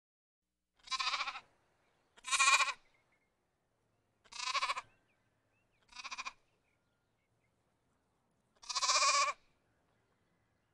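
Lamb bleating five times, separate calls about half a second to a second long, a second or two apart.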